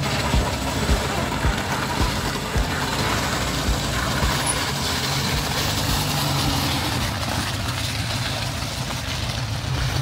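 Moskvich 2140's four-cylinder petrol engine running steadily as the car moves off under its own power, with dull low thumps about twice a second.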